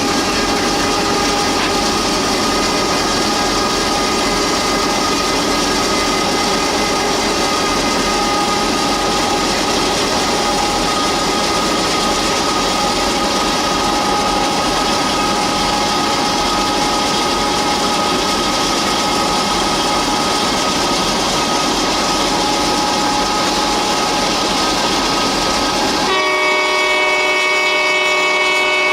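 Norfolk Southern freight train running, a steady noise of wheels on rail with a held tone over it. About 26 seconds in the sound changes suddenly to a locomotive horn chord sounding clearly.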